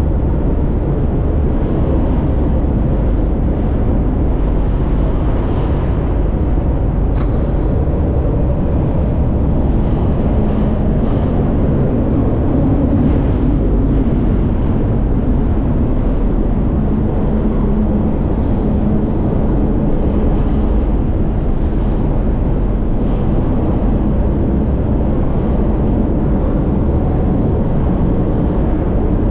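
Steady loud rumble of a moving freight train heard from inside an empty boxcar: steel wheels running on the rails and the car body rattling. A steady low hum joins about ten seconds in.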